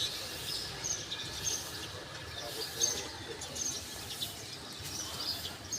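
Small birds chirping in short high calls, several a second and scattered throughout, over a low steady background rumble.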